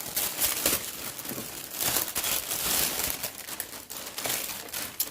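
A package's wrapping being torn open and crinkled by hand: a continuous run of rustling and crackling with sharp rips.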